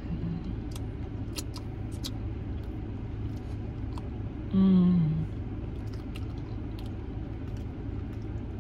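Eating crispy fried chicken: a few sharp crunches and mouth sounds over a steady low hum in the car cabin. About halfway through comes a short hummed "mmm" that falls in pitch.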